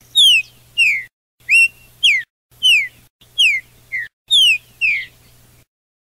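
A caged or wild songbird's loud whistled song: clear notes that each slide downward, mostly in pairs, repeated about once a second. The recording is chopped into short pieces with abrupt cuts to dead silence between them, and a faint low hum sits under each piece.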